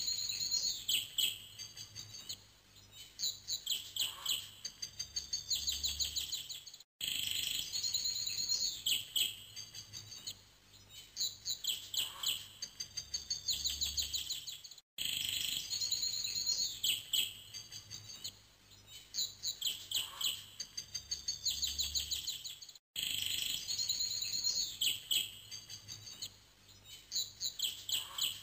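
Looped recording of birdsong, quick chirps and trills that repeat the same pattern about every eight seconds, each time after a brief dropout.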